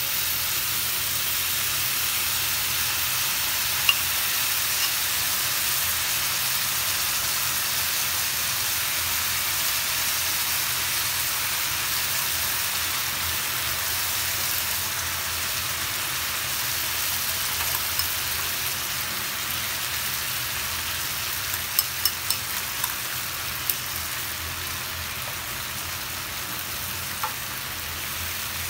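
Toasted bread cubes sizzling in a hot frying pan as sauce is poured over them and spread, a steady high hiss. A few sharp clicks of a utensil against the pan come about four seconds in and in a quick cluster later on.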